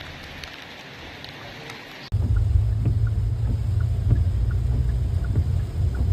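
Steady hiss of heavy rain. About two seconds in it cuts abruptly to a much louder low rumble with scattered knocks, from storm wind or rushing water.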